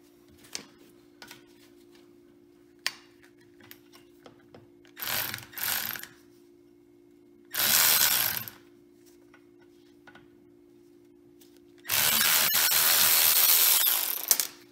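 Cordless electric ratchet spinning out the half-inch bolts of a 1926 Ford Model T's rear differential housing: two short bursts about five seconds in, a run of about a second near eight seconds, and a longer run of nearly three seconds near the end. Light clicks of socket and tools come between the runs.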